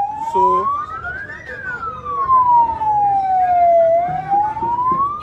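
A siren wailing slowly up and down. It rises to its peak about a second and a half in, falls steadily for over two seconds, then starts rising again near the end.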